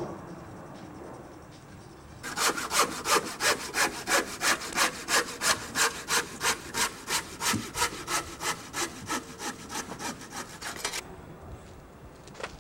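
Handsaw cutting through a timber plank in rapid, even strokes, starting about two seconds in and stopping abruptly near the end.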